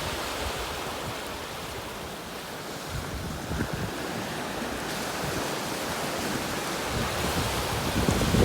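Ocean surf washing on a beach, a steady hiss of waves, with wind buffeting the microphone in gusts that grow louder near the end.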